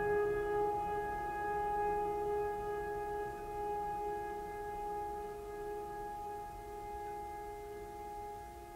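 Background music: a steady, held droning note that slowly fades.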